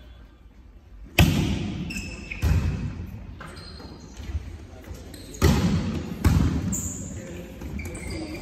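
A volleyball being struck in a large, echoing sports hall: four sharp smacks, one about a second in, another at about two and a half seconds, and two close together from about five and a half to six seconds, each ringing on in the hall.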